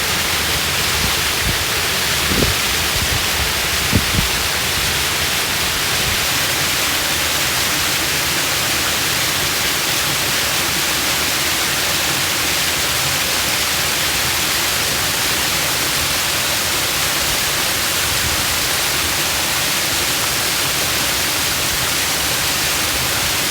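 Broad waterfall of water pouring over a wide rock slab, rushing loudly and steadily. Two brief low thumps come about two and four seconds in.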